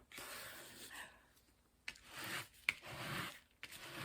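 Faint rubbing and rustling of a diamond painting canvas and its plastic cover being handled, with a couple of sharp clicks about two and almost three seconds in.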